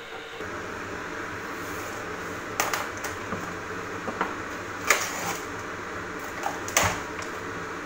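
A few sharp clicks and knocks of objects being handled, about five spread over several seconds, the loudest near the middle, over a steady background hiss.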